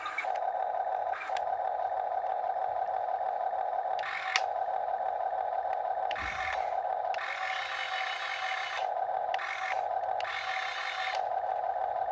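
Electric drive motors of a Huina 1/14-scale RC excavator whining steadily as it works, with further motors cutting in and out every second or two. A sharp click about four seconds in.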